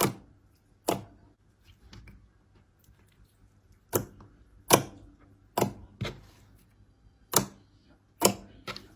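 Slime being squeezed and poked, giving sharp, sticky pops and clicks about nine times at uneven intervals.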